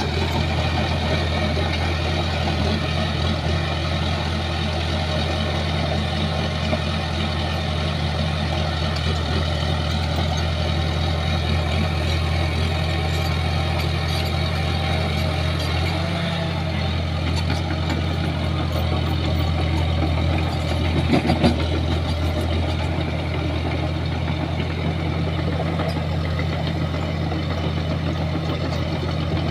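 Shantui bulldozer's diesel engine running steadily, dipping briefly about halfway through, with a few clattering knocks about three-quarters of the way in.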